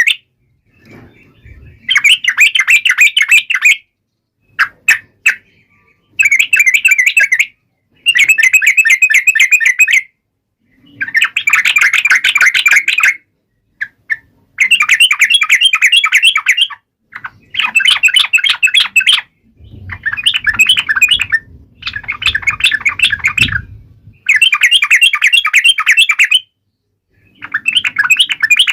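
Yellow-vented bulbul singing in fast chattering phrases of rapid notes, each phrase a second or two long, repeated about ten times with short pauses between.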